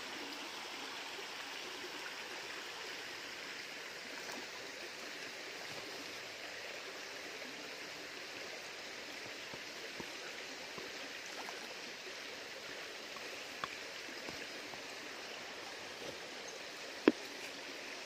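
Steady rush of a flowing river. One sharp click cuts through it near the end.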